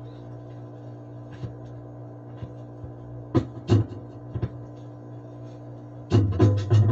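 Record player with a steady electrical hum and a few sharp clicks as the tonearm is handled and the stylus set down on a spinning 45 rpm single. About six seconds in, the record's music starts suddenly and loudly.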